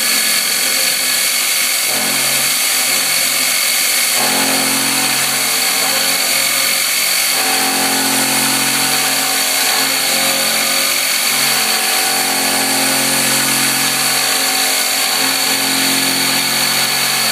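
Precision Matthews 45 CNC mill roughing a bore in 1045 plate steel with a 7/16-inch carbide roughing end mill: a steady spindle and cutting noise as the cutter circles and ramps down into the steel, throwing chips. Its tones step to new pitches a few times as the toolpath moves on.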